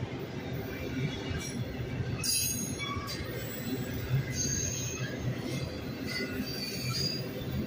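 Freight train of autorack cars rolling past, its wheels on the rails making a steady rumble. Short high wheel squeals come and go over it.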